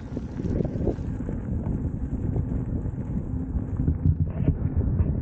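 Wind buffeting a moving camera's microphone during an electric unicycle ride: a steady low rumble.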